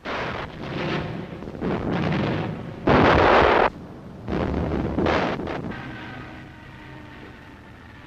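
Air-raid explosions on an old film soundtrack: five or six heavy blasts in quick succession, the loudest about three seconds in, dying away to a low rumble. A faint wailing siren starts near the end.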